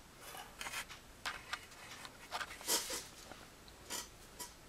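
Faint, scattered small clicks and light rustling from hands handling a thermal fuse and its metal wire leads against the dehydrator's metal heater bracket, the clearest click a little under three seconds in.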